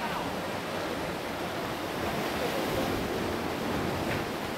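Steady wash of sea surf and wind, with no sudden sounds.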